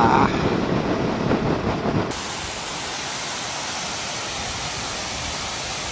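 Steady rushing of a waterfall, after about two seconds of wind and road noise from a moving motorcycle that cuts off suddenly.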